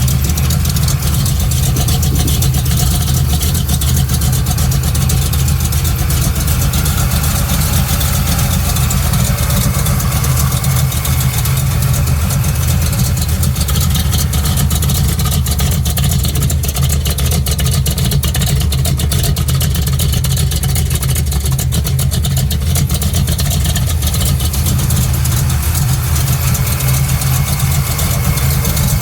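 Chevrolet truck engine idling steadily through a 3-inch dual exhaust with two glass packs and two Flowmaster Super 10 mufflers, a deep, even exhaust rumble.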